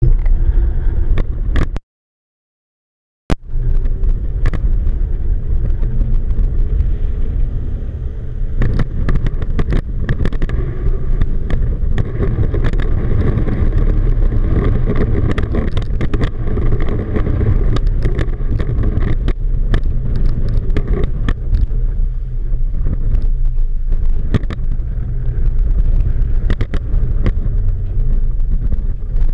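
Twin outboard motors of a small inflatable towboat running steadily under load while towing a boat on a line, heard as a heavy low rumble with frequent sharp clicks and knocks. The sound cuts out completely for about a second and a half near two seconds in.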